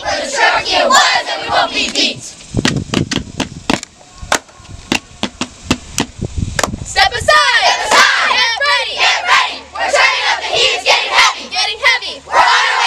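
A group of girls chanting a camp yell in unison, breaking off after about two seconds into a run of sharp claps, then picking the loud group yell up again about seven seconds in.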